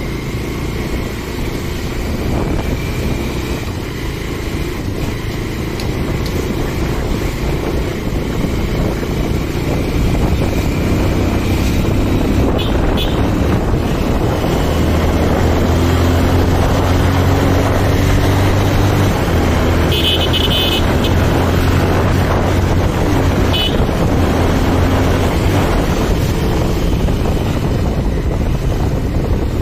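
Motorcycle engine running steadily while riding at road speed, with wind rushing over the microphone. A horn toots briefly twice, about twelve and twenty seconds in.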